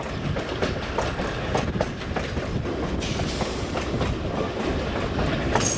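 Rail vehicle running along the track, its wheels clicking and clattering over a steady low running noise.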